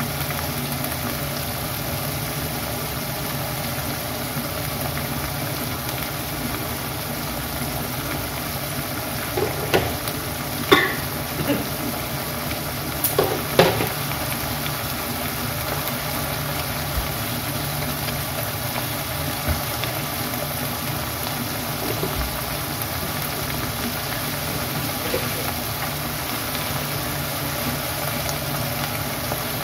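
Vegetable fern greens (pakis) simmering and sizzling in liquid in a ceramic-coated pan on a gas stove, a steady hiss throughout. A few brief clicks and knocks come between about ten and fourteen seconds in.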